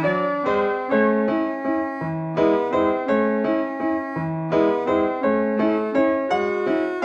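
Background music: solo piano playing a steady stream of notes.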